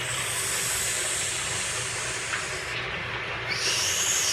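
Imitated rain-and-wind sound: a steady hiss that turns brighter and more shushing about three and a half seconds in.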